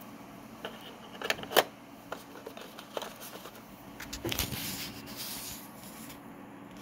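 Miniature figures and a tray insert being handled: a few small clicks and knocks as a figure is set back into its slot, the loudest about a second and a half in, then a short rustling scrape.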